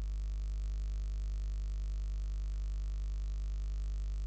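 Steady low electrical hum, a constant drone of several even tones with nothing else happening.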